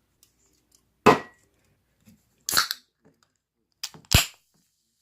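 Three sharp knocks or bangs about a second and a half apart, the last with a deep thump.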